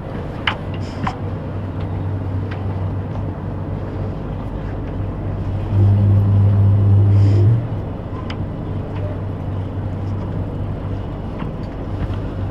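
Alstom Metropolis C751C metro train standing at the platform with a steady low electrical hum, and a louder low buzz that comes on for about two seconds in the middle. Two short clicks sound near the start.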